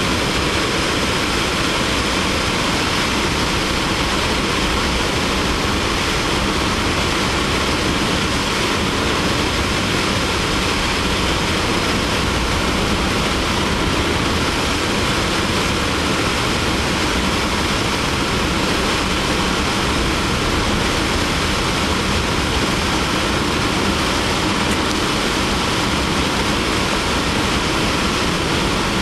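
Steady rush of air past a Kitfox light aircraft gliding with its engine shut off, a deadstick descent with the propeller not driven.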